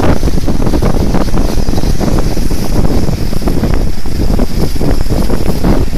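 Strong wind buffeting the microphone in a loud, fluttering rumble, over surf breaking on the beach.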